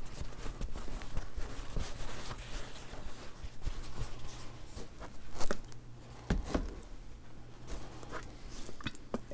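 A cloth rag rubbing and wiping over the engraved metal of a firearm, lifting excess paint off with mineral spirits, with a couple of light handling knocks around the middle.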